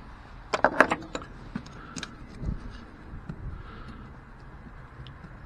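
Sharp tool clicks and knocks as the windscreen wiper arm's retaining nut is undone: a quick run of clicks about half a second in, then a few single knocks and ticks.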